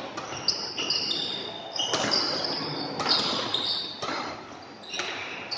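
Badminton doubles rally: rackets striking the shuttlecock roughly once a second, each hit a sharp crack, mixed with short high squeaks of players' shoes on the court.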